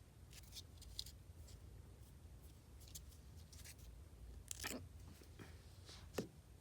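Faint, scattered small clicks and snips of hands working with nail polish strips, about eight over a few seconds, the two sharpest near the end, over quiet room tone.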